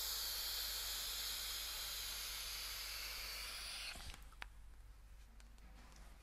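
Long steady hiss of a vape puff, breath and vapour rushing, that stops abruptly about four seconds in with a sharp click; a few faint clicks follow.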